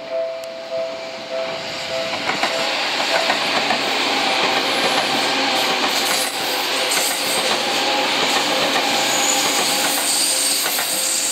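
Seibu 10000 series electric limited express train passing through a station at speed: a rush of wheel and running noise builds, with clicks of the wheels over rail joints, and stays loud as the cars go by. A two-tone electronic warning signal beeps about twice a second over the first couple of seconds and comes back faintly near the end.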